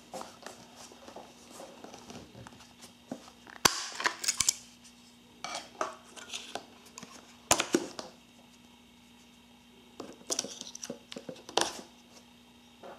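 Plastic battery compartment of an instax Wide 300 instant camera being opened and AA batteries pushed into its spring contacts: a scatter of sharp clicks and short clattering rattles of plastic and metal, in several bursts.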